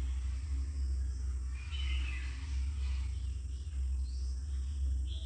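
Steady low hum, with a few faint high chirps about two and four seconds in.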